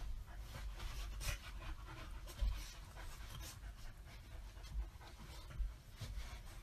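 Chow chow panting in quick, noisy breaths, with a few soft low thumps; the loudest thump comes about two and a half seconds in.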